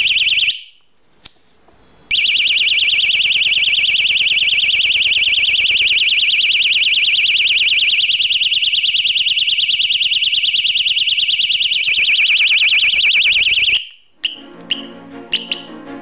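A 9 V battery-powered bicycle seatpost alarm siren, set off by movement. Its loud, fast-warbling high electronic tone sounds briefly, pauses, then sounds for about twelve seconds, changing its pattern a couple of times. It cuts off suddenly near the end, followed by a couple of short chirps.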